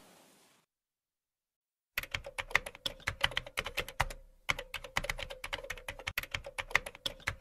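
Computer keyboard typing, a fast run of key clicks used as the sound effect for text being typed on screen. It starts about two seconds in after a silence, with a brief pause about four seconds in.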